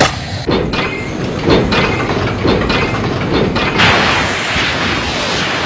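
Rhythmic mechanical clatter, about three knocks a second over a low rumble. A little under four seconds in it gives way to a steady rushing hiss.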